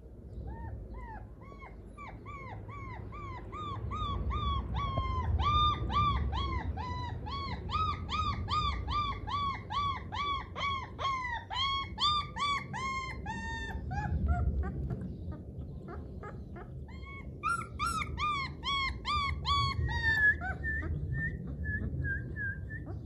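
Puppy whimpering and crying in a long run of short, high, arching whines, about two to three a second, over a low rumble. The cries stop for a few seconds past the middle, then resume, ending in a higher, flatter series of whines.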